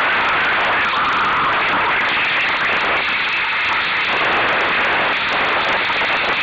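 Steady rushing noise of wind and water aboard a Solo sailing dinghy under way.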